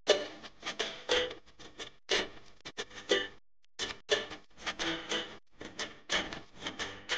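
Kitchen knife chopping a bunch of fresh parsley on a plastic cutting board: quick, uneven knocks of the blade on the board, about three a second, with a short pause about three and a half seconds in.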